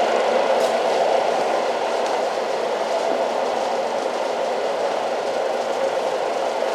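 Old train running, a steady dense rumble and rattle of wheels and carriage, with a faint click about half a second in.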